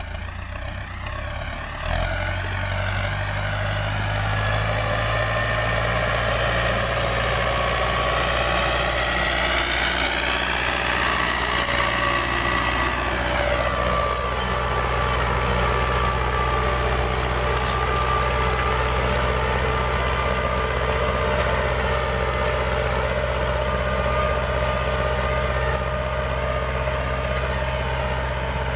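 Tractor engine running steadily as it pulls rotary weeders through potato rows. It draws near, passes close by about 13 seconds in, its pitch dropping as it goes past, then pulls away.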